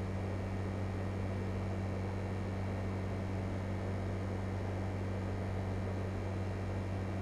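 LG Multi V 5 VRF air-conditioning outdoor unit running steadily: a low hum under a fan's even rushing noise.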